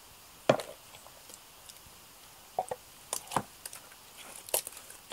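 Wet briquette mix being filled by hand into the form of a wooden briquette press: a few scattered short knocks and handling sounds, the loudest about half a second in.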